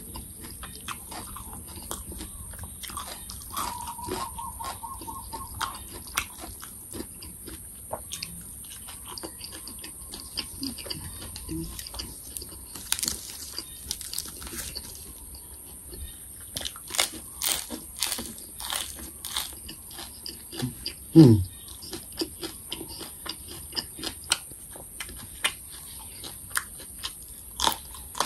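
Close-up eating sounds: crisp bites and crunchy chewing of raw vegetables (cucumber and green pepper) eaten by hand. About three-quarters of the way through there is one short loud sound that falls steeply in pitch.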